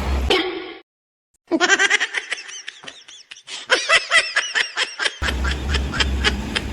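A person laughing, a run of quick ha-ha pulses lasting about four seconds, after a short tone and a brief moment of silence. A steady low hum with noise comes back near the end.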